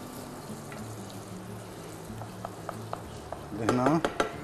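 Tomato paste frying gently in oil in a pot while a wooden spoon stirs it: a soft sizzle, with light scattered taps and scrapes of the spoon against the pot.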